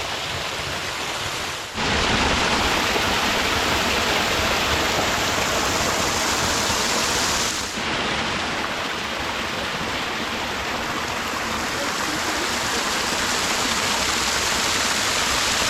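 Water of a waterfall falling and splashing with a steady rush, briefly dipping and resuming twice, shortly after the start and about halfway through.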